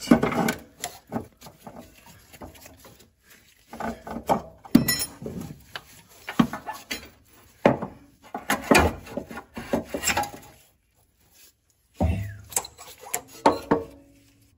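Irregular clunks, knocks and scraping as an old coilover strut is worked free and pulled out of a car's front suspension, with a brief pause about two-thirds of the way through.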